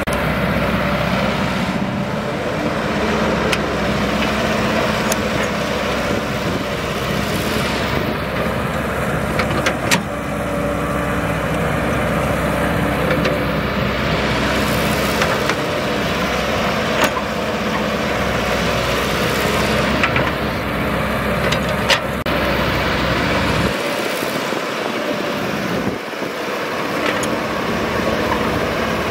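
Caterpillar tracked excavator's diesel engine running steadily under load while it digs dry soil, with a few sharp clanks from the bucket and arm.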